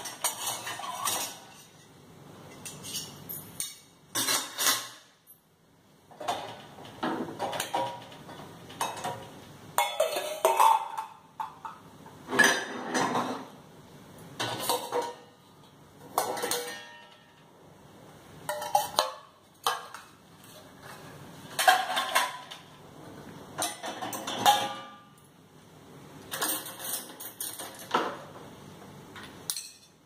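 Stainless steel vessels and cutlery clinking and clattering against each other and the dishwasher's wire racks as they are lifted out, in irregular clatters every second or two.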